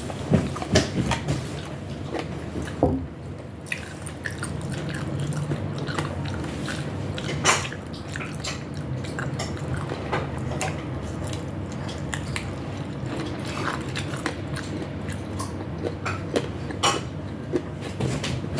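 Close-miked eating sounds: chewing and biting food, with scattered short wet clicks and smacks from the mouth, over a steady low hum.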